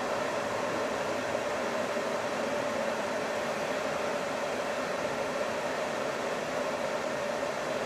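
Steady cab noise inside a Hino Profia truck driving through a road tunnel: an even hiss of engine and road noise with a constant mid-pitched hum.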